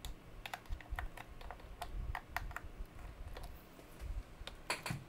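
Irregular small clicks and taps of RCA plugs and cables being handled on a workbench, with a quick cluster of clicks near the end.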